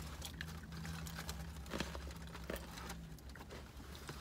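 Small clicks and smacks of someone chewing and picking at fried chicken with their fingers inside a car, over a steady low hum; part of the hum stops about three seconds in.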